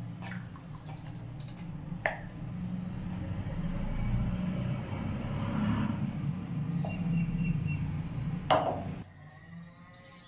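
Thick blended juice pouring from a blender jar into a glass bowl: a steady splashing pour that grows louder, with sharp clinks about two seconds in and again near the end. The pour stops about nine seconds in.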